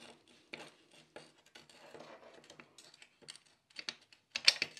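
Light, irregular metal clicks and rattles of a Porsche G50 pedal assembly being worked apart by hand: the pedal arm, coil return spring and bushings shifting on their pivot shaft. A louder cluster of clinks comes near the end.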